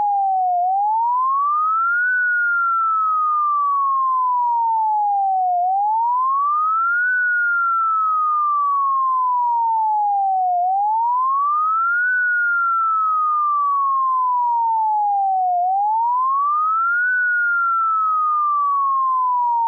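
Synthesized fire-engine siren made to the national standard: a single pure tone that rises quickly for about a second and a half, then falls slowly for about three and a half seconds. The slow wail repeats about every five seconds.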